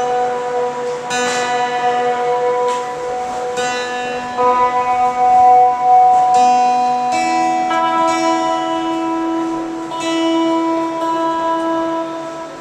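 Guitar strumming slow chords, each left to ring for a second or more before the next.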